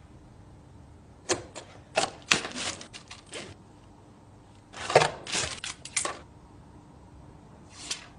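A phone's box and packaging being handled during unboxing: two bursts of quick clicks and scraping rustles, then a single short rustle near the end.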